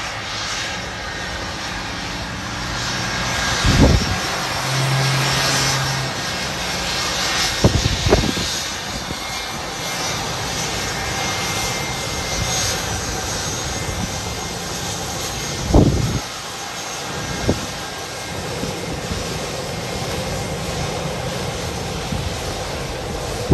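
Airliner engines running steadily. Gusts of wind buffet the microphone in short thumps several times.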